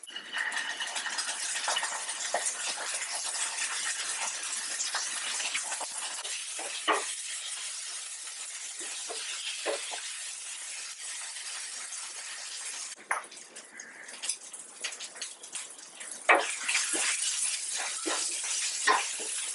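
Hot oil sizzling steadily in a frying pan with a few clicks of a spoon against the pan. About two-thirds through the sizzle dies down, then flares up again as curry leaves go into the oil, with more quick clicks of stirring.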